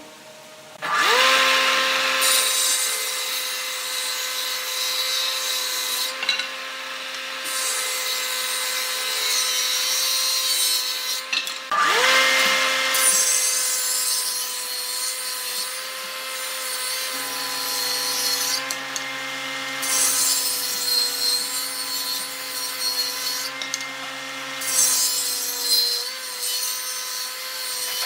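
Electric power tool working wood. The motor spins up about a second in, runs at a steady whine with a coarse cutting hiss that comes and goes, and stops briefly before spinning up again about twelve seconds in.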